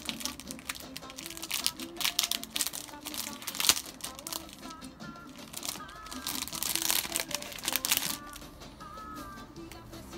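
Plastic packaging crinkling and rustling as small gear is handled and unwrapped, loudest in two spells, a few seconds in and again past the middle, with quiet music playing underneath.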